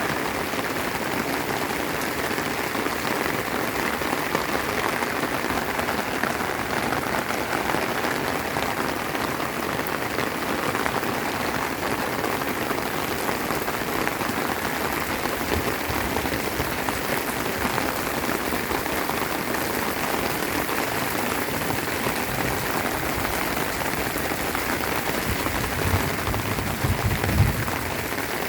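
Steady rain falling, an even rushing patter, with a few brief low thumps near the end.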